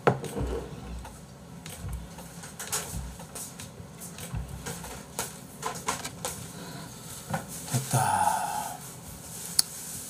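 Scattered light knocks and clicks of tableware being handled on a tray, with a sharp click near the end.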